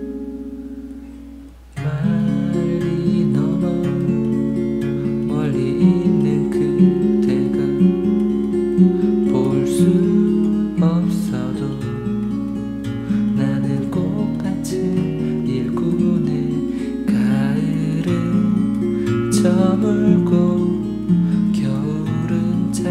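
Lakewood steel-string acoustic guitar played fingerstyle. A chord rings and fades at first; then, just under two seconds in, picked melody notes over a moving bass line start suddenly and carry on.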